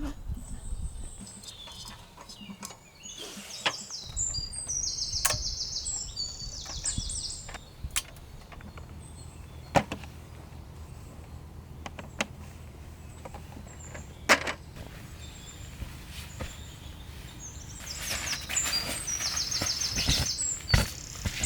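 Small birds singing in quick runs of high chirping notes, in two spells, over a steady low rumble, with a few single sharp knocks in between.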